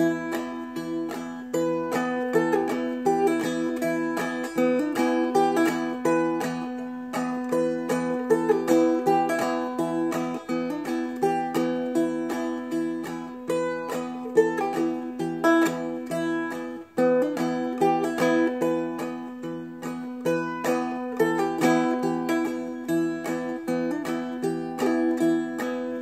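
Seagull Merlin M4, a four-string fretted dulcimer-style instrument, played slowly in two-finger clawhammer style: an even run of plucked melody notes over ringing drone strings, with a short break about two-thirds of the way through.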